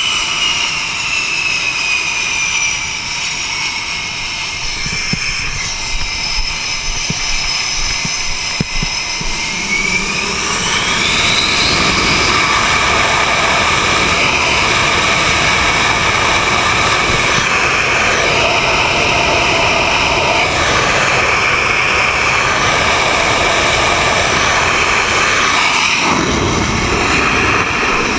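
F/A-18E Super Hornet's twin jet engines on the catapult: a high whine that falls over the first few seconds, then rises sharply about ten seconds in as the engines spool up to full power for launch, holding a loud, steady full-power sound. Near the end the sound changes as the catapult fires and the jet leaves the deck.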